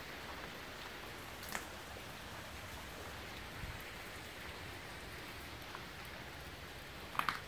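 Steady hiss of rain falling, with a few light ticks and a cluster of sharp clicks near the end.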